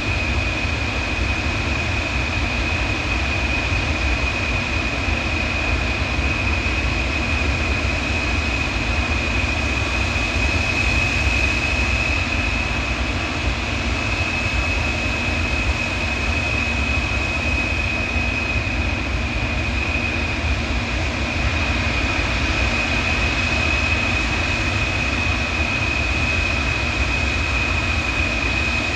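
Jet engines of a large Antonov cargo aircraft running with a steady, loud roar, a low rumble under it and a constant high whine on top.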